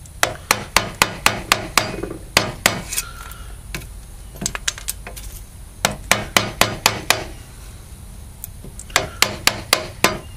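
A mallet striking a chisel that chops small blocks out of an ash spoon blank. The sharp knocks come in quick runs of about four a second, with short pauses between the runs.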